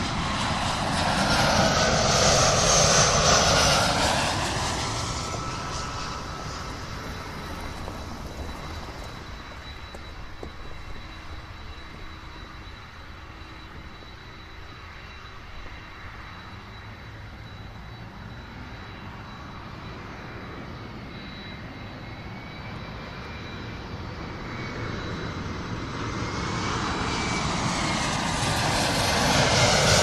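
An airliner flying over, loudest a few seconds in, its tone sweeping as it passes and then fading. A second airliner approaches and grows steadily louder toward the end.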